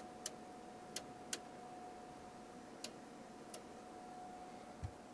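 Light, irregular clicks, about seven in five seconds and the last a small thump near the end, from hand work with an alignment tool on the FM tuner's circuit board, over a faint steady tone and hiss.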